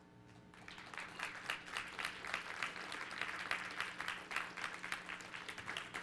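Audience applauding. The clapping starts about half a second in and stays dense and steady.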